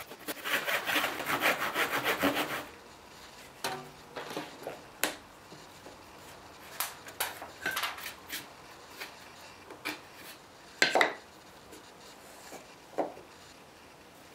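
Hand saw cutting through a thin strip of wood with quick, short, even strokes for about two seconds. Then the wooden pieces are handled and set down, giving scattered knocks and taps; the loudest knock comes about eleven seconds in.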